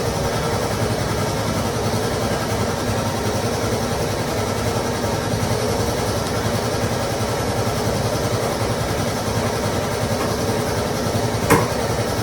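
Steady mechanical running noise, an even drone with a low hum, broken by one sharp knock near the end.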